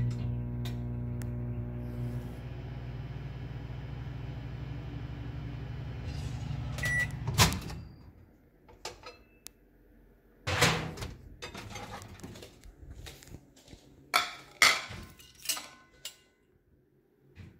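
hOme microwave oven running with a steady hum for about seven seconds, then a short beep and the door clicking open, which stops the hum. After that come scattered knocks and clatters as a plate and a metal ruler are handled on a tiled counter.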